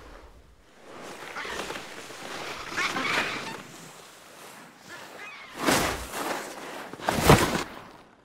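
Bodies sliding and scraping over snow, then two loud whooshes about five and a half and seven seconds in as something rushes past through the snow.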